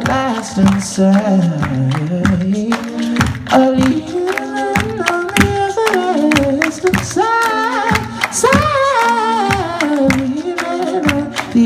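A man singing live into a microphone over layered, looped vocal parts: several voice lines sound at once, one held and sliding slowly down and up in pitch, with a higher melody rising later. Sharp percussive clicks recur throughout as a beat.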